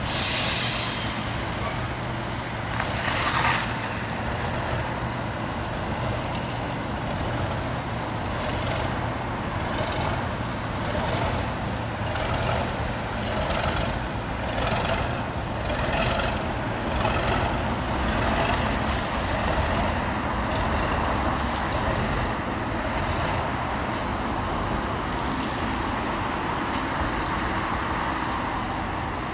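Class 37 diesel locomotives running past on a steel railway bridge, followed by HST passenger coaches, with a steady low engine hum under the rumble of the train. Through the middle, the wheels click evenly over the rail joints. There is a short loud hiss right at the start and another about three seconds in.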